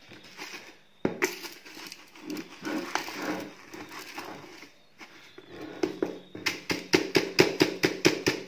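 Brass and steel lathe swarf scraping and rattling in a plastic bucket as a magnetic pickup tool is stirred through it. About 6.5 s in, a quick run of sharp taps, about five a second, as the tool is knocked on the side of the bucket to shake the brass loose from the steel.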